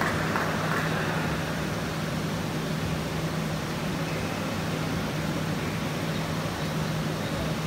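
Steady hiss with a constant low hum underneath, the background noise of a large indoor sports hall, with no shuttle hits.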